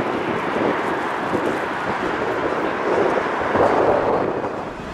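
A jet airliner's engines running at high power on the runway, a steady rushing noise, with wind on the microphone.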